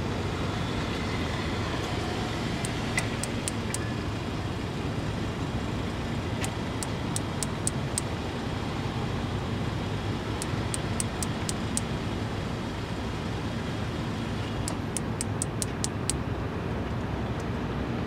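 Male Platypedia putnami cicada wing-clicking, its mating call: four short runs of sharp, rapid clicks, each run a handful of clicks, about four seconds apart, over a steady low background rumble.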